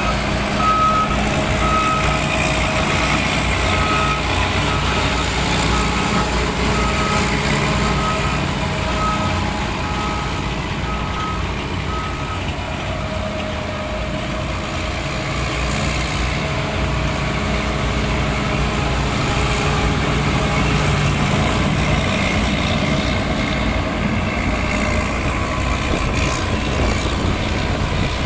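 Heavy field machine's engine running steadily, with a high warning beep repeating about once a second that stops about twelve seconds in while the engine carries on.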